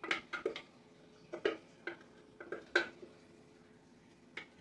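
A spatula knocking and scraping against the inside of a plastic food processor bowl while chopped kale and Brussels sprouts are scraped out. The knocks are irregular, about a dozen, with the loudest near three seconds in and a long pause before the last one.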